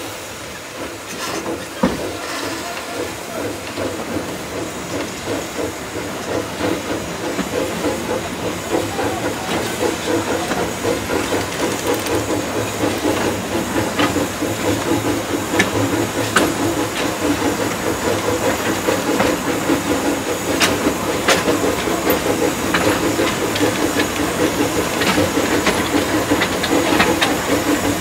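A 760 mm narrow-gauge steam locomotive approaching at low speed, steam hissing from its open cylinder drain cocks, growing louder as it comes closer. Sharp metallic clanks come now and then, more often in the second half.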